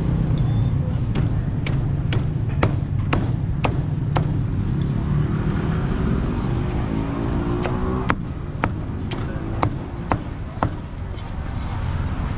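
Meat cleaver chopping roast pork on a thick wooden chopping block, sharp chops at about two a second in two runs with a short pause between them. Under it a steady low traffic rumble, with a motorbike engine rising in pitch in the middle.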